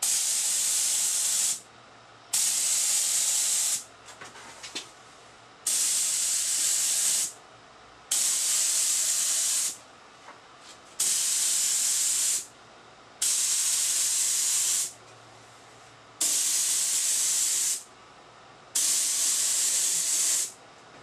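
HVLP spray gun spraying urethane finish in eight separate bursts of hissing air, each about a second and a half long, one trigger pull per pass over the work.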